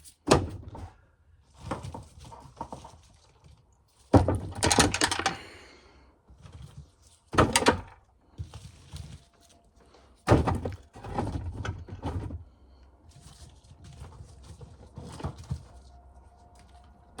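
A series of irregular heavy thunks and knocks, about seven in all, with the loudest about four seconds in, and quieter shuffling and scraping between them: things being handled and set down in a small room.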